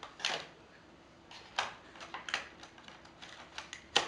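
Several sharp plastic clicks and clacks from loading a CD into a laptop's disc drive: the tray handled, the disc set in and the tray pushed shut, with the loudest click near the end.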